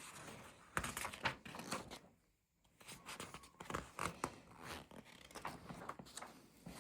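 Hands handling paper and plastic parts packaging: irregular rustling, crinkling and light clicks, broken by a brief dead-quiet gap about two seconds in.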